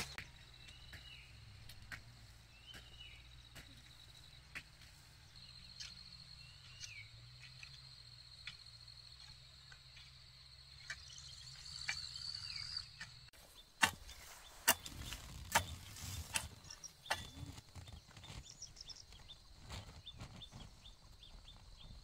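Rural field ambience: a bird giving occasional short chirps over a steady high insect drone and a faint low hum. About two-thirds of the way through the sound changes abruptly to irregular knocks and thumps.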